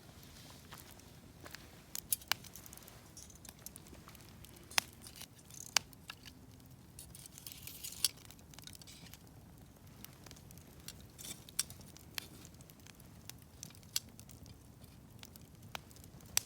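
Wood campfire crackling: sharp pops and snaps at irregular intervals over a soft background.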